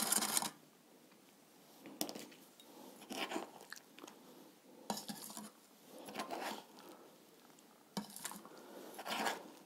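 Stirring in a glass of water, baking soda and soil: short scrapes and clinks about once a second. No fizzing comes through, the sign that the soil is not acidic.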